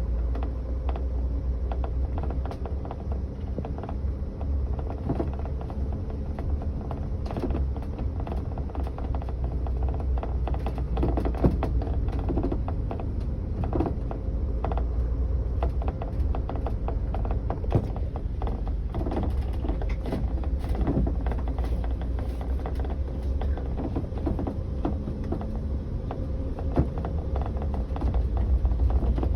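Sliding door of a 2022 Coachmen Galleria camper van creaking and clicking irregularly over a steady low rumble: the door noise problem.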